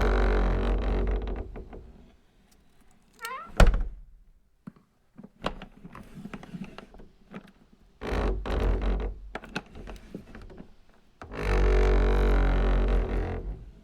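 Something vibrating against a wooden tabletop, buzzing and rattling in three long bursts: one at the start lasting about two seconds, another about eight seconds in, and a longer one from about eleven seconds in. A brief rising squeak ending in a sharp knock comes about three and a half seconds in.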